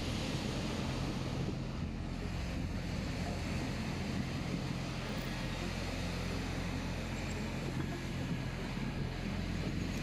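Storm waves breaking and washing over a pebble beach, with strong wind buffeting the microphone as a steady low rumble.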